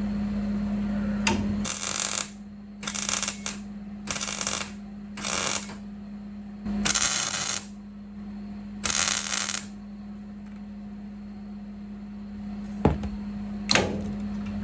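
Aerosol spray paint can spraying black paint in six short hissing bursts, each about half a second to a second long, over a steady hum. A few sharp clicks follow near the end.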